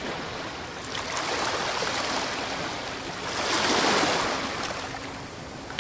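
Sea waves washing onto a beach, a steady rushing surf that swells twice.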